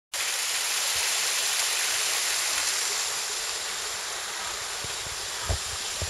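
Thin waterfall falling onto rocks and into a small pool: a steady rush of water, a little quieter after the middle. A single low thump about five and a half seconds in.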